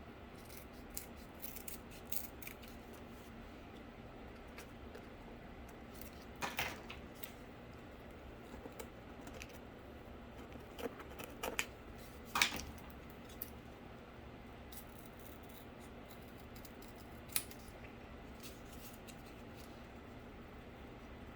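Scattered clicks, scrapes and crackles of cardboard pieces and tools being handled and moved about on a desk, with a few louder knocks and rustles near the middle and one sharp click later, over a faint steady hum.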